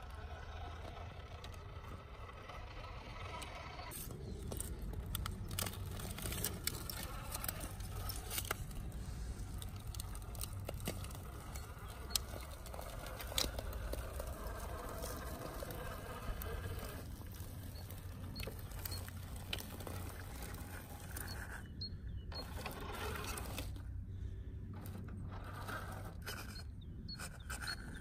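Cross-RC UC6 6x6 RC scale truck crawling, its electric motor and geared drivetrain giving a steady whine over a low rumble. Many sharp crackles and scrapes come from under the tyres, most of them in the first half.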